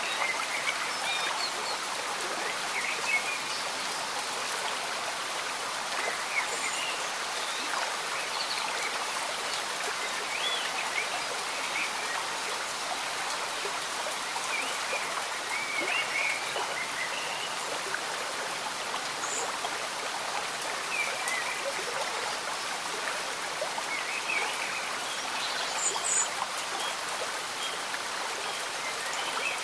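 Slow-moving stream bubbling under steady gentle rain, a constant even wash of water, with short high chirps scattered through it.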